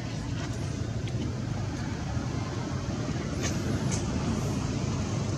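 Steady low outdoor background rumble, with two brief high-pitched chirps about half a second apart a little past the middle.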